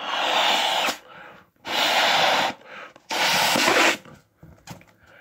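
A balloon being blown up by mouth: three long puffs of rushing breath, each about a second, with short quiet gaps between them.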